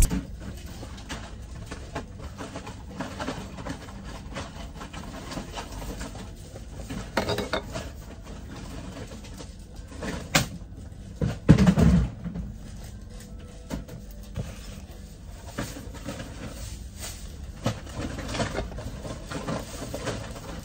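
Scattered soft knocks and clatter of things being handled over quiet indoor room tone. The loudest knocks come a little past halfway.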